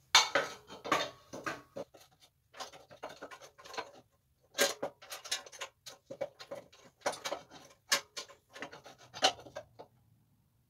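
Irregular runs of metallic clicking and rattling as hands work on a mini bike's jackshaft and chain drive, in short clusters with brief pauses between them.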